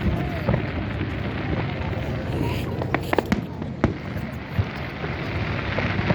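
Distant aerial firework shells bursting: scattered sharp bangs, with a quick cluster of several about three seconds in, over a steady background of voices.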